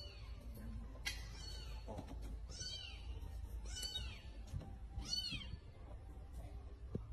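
A cat meowing: four short, high-pitched mews, each rising and then falling in pitch, spaced a little over a second apart.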